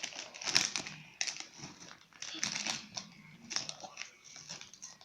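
A plastic snack-chip bag crinkling in irregular bursts as it is handled.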